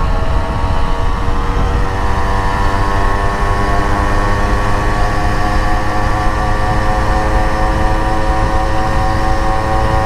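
Suzuki Max 100's single-cylinder two-stroke engine running at a steady speed on the move, with wind rumbling on the microphone.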